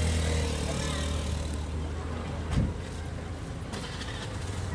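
A motor vehicle's engine running, a steady low hum that fades away after about three seconds. There is a single thump about halfway through.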